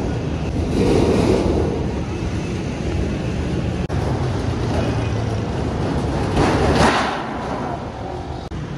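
A steady low rumble of background noise, with two louder swells, one about a second in and one near seven seconds.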